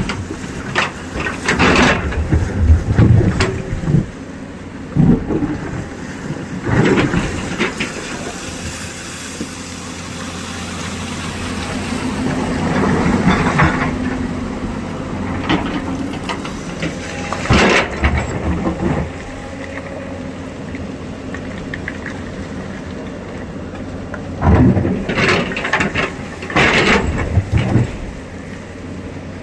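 Excavator engine running steadily, swelling in level for a few seconds midway, with loud clanks and knocks breaking in several times, most densely near the start and again near the end.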